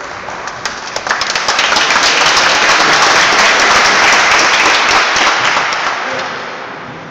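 Audience applause, many hands clapping together: it swells about a second in, holds for a few seconds and dies away near the end.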